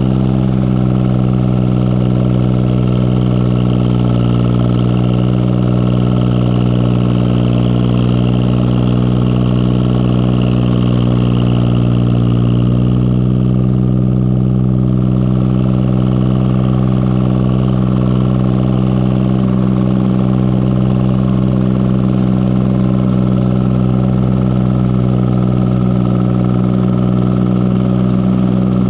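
Tractor engine running steadily while pulling a bush hog mower, with a slight drop in pitch around the middle.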